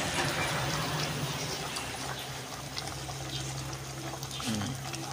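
Thick pork rib curry simmering in an aluminium pot: a steady bubbling hiss with faint pops, over a low steady hum.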